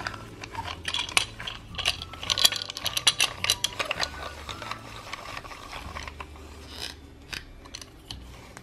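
Plastic Play-Doh fry-cutter toy being spun by hand: rapid, irregular plastic clicking and rattling from its turning blade, thinning out near the end.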